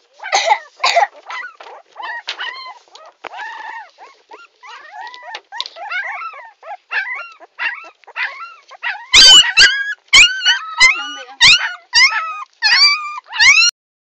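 Puppy crying: a long run of short, high-pitched whines and yelps, each rising and falling in pitch, growing louder and quicker about two-thirds of the way through. Knocks from handling come in among the louder cries, and it all stops just before the end.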